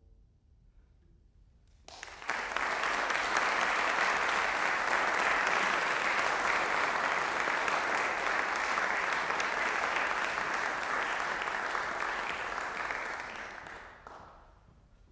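Audience applauding: after about two seconds of hush the clapping starts, holds steady, and fades out near the end.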